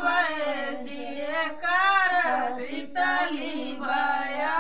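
Women singing a folk wedding song (vivah geet) unaccompanied, in long, drawn-out sung lines with short breaks between phrases.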